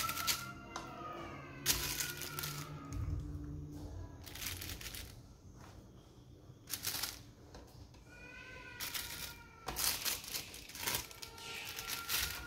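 Butter paper crinkling and rustling in several sharp bursts as raw shami kabab patties are picked up and set down on it.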